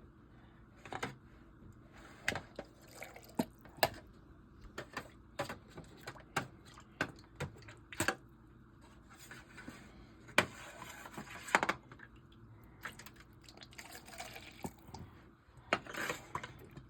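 Kitchen work over a roasting pan: irregular clinks and knocks of a utensil against the pan, with liquid pouring and dripping, as the turkey's pan juices are handled.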